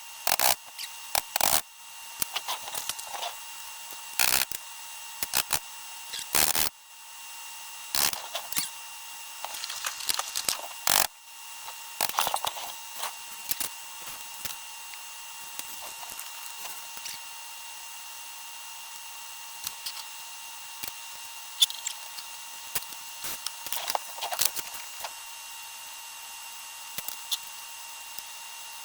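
Hand tools and small parts clicking and knocking against each other as an RC truck's axle and carrier housing are taken apart and refitted. The knocks are irregular and come thickly for the first dozen seconds, then only now and then, with a few short scrapes.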